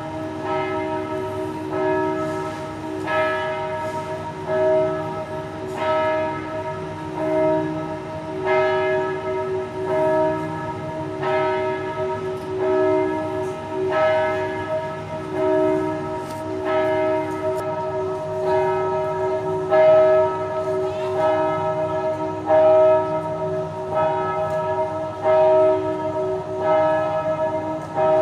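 Church bells of the Notre-Dame Cathedral Basilica of Saigon ringing a peal: several bells of different pitch struck in turn, about one strike a second, their ringing overlapping.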